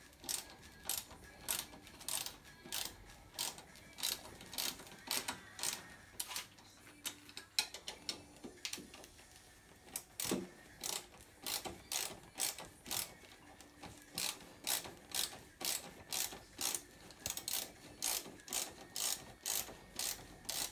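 Ratchet wrench with a 10 mm socket clicking in quick even strokes, about three clicks a second, as the ATV's handlebar clamp bolts are tightened; the clicking pauses briefly a little before halfway, then resumes.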